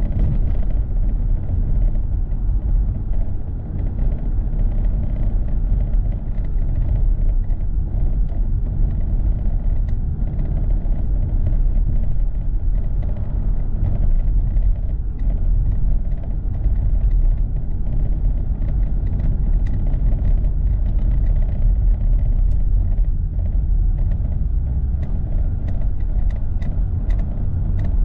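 Car driving on a city street, heard from inside the cabin: a steady low rumble of engine and tyre noise.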